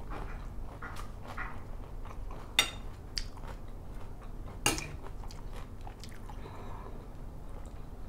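Close chewing of a mouthful of spicy squid salad, picked up by a lapel mic. Two sharp clinks of the metal spoon and fork against the plate, about two and a half and four and a half seconds in.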